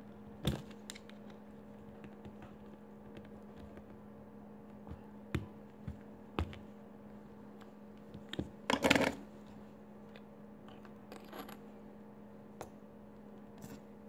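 Small metal clicks and scrapes as a caseback opener works the back off a Swiss Army wristwatch, with a louder rattling scrape about nine seconds in. A steady low hum runs underneath.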